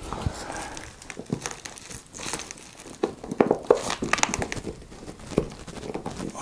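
Irregular crinkling, rustling and small clicks: a screwdriver is pressed down on a foot-strap screw while the strap's padding and the foam deck pad are handled, as the screw is lined up with the board's insert.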